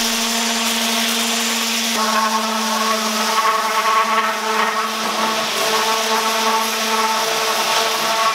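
Electric random orbital sander running continuously as it sands a pine board, a steady motor whine over a hiss of sanding. The note shifts slightly about two seconds in.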